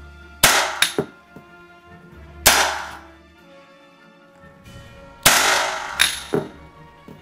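Blank cartridges fired from an M16-pattern rifle fitted with a flash-suppressor-style blank firing adapter: sharp bangs with short echoing tails. Two come about half a second in, one at two and a half seconds, and three more close together from about five seconds.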